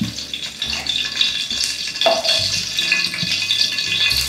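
Hot rendered duck fat sizzling steadily in a skillet fresh from the oven as duck thighs are lifted out with tongs, with a few dull low knocks from the pan and tongs being handled.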